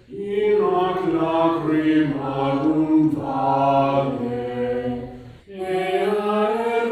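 A small choir of young voices singing unaccompanied chant in long held notes: one phrase, a brief breath about five and a half seconds in, then the next phrase begins.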